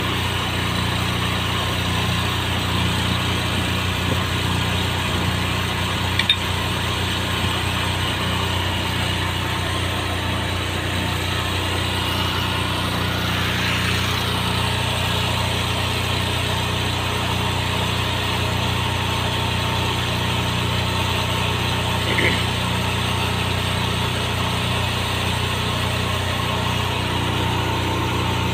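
Heavy diesel engine idling steadily, with a couple of faint metallic clicks from work on the trailer's gooseneck.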